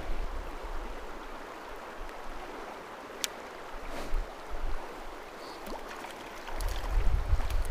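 River water running steadily, an even rush of current. There is one sharp click about three seconds in, and a low rumble that starts near the end.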